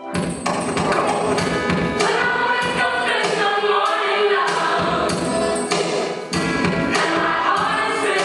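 Gospel music with a choir singing over tambourine and a steady beat, cutting in suddenly at full volume.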